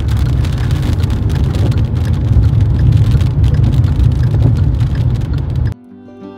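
A vehicle moving slowly along a rough mountain road, with a heavy low rumble and a patter of sharp ticks. The sound cuts off abruptly near the end into soft music with sustained string notes.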